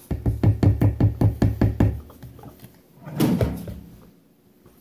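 Quick run of plastic knocks, about six a second for two seconds, as the pieces of a Tupperware Power Chef hand-pull mixer are taken out and tapped against the bowl to shake off the thick cake batter. About three seconds in there is one longer, noisier sound.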